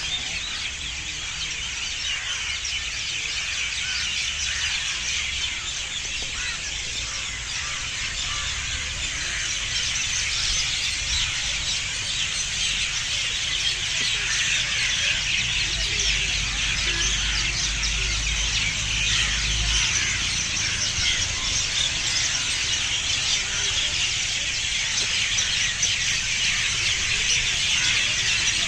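A dense chorus of many small birds chirping at once, with rapid overlapping chirps that keep going and grow slightly louder. A low rumble sits underneath and swells about two-thirds of the way through.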